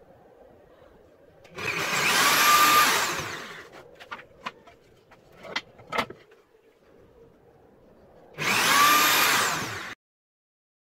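Bench drill press boring into a wooden board, in two loud bursts of about two seconds each as the bit cuts through, with a few sharp knocks in between.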